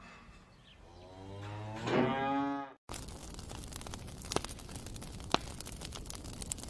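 A cow moos once, a long low call that swells in loudness and is cut off abruptly about three seconds in. After that, a small fire of twigs and sticks crackles with sharp scattered pops.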